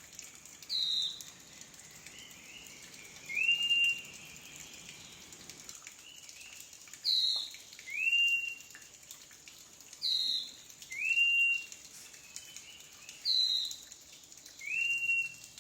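A bird calling in a repeated two-note phrase: a high, short falling whistle, then a lower whistle that rises and holds. The phrase comes about every three seconds, four or five times.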